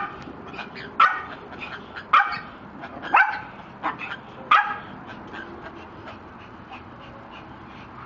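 Small dog barking in five sharp barks, roughly a second apart, the last about halfway through.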